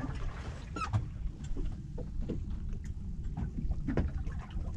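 Wind rumbling on the microphone aboard a small open boat on the water, with a few light knocks scattered through it.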